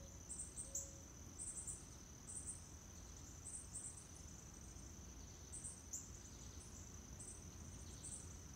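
Faint insect chorus, crickets or the like: a steady high-pitched drone with short chirps repeating irregularly on top of it.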